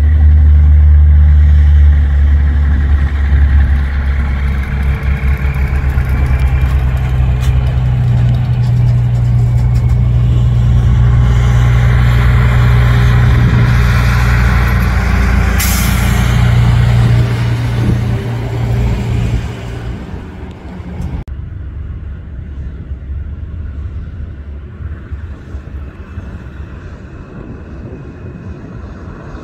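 Diesel engines of semi trucks running as the rigs pull past at low speed, loudest at the start and strong until about 17 seconds in, with a short, sharp hiss of air brakes about 15 seconds in. The sound falls off about 20 seconds in, leaving a quieter truck engine further off.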